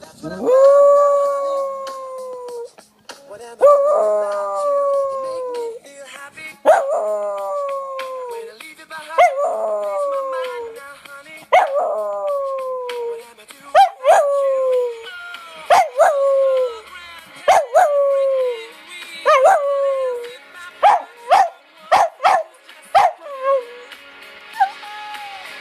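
West Highland white terrier howling over and over. A long howl about a second in is followed by drawn-out howls every two to three seconds, each sliding down in pitch. Toward the end they turn into short, choppy yelps.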